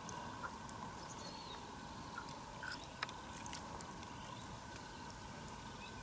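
Faint small splashes and trickles of water as hands handle a fish just below the surface, over a steady outdoor hiss with a few faint clicks and short high chirps.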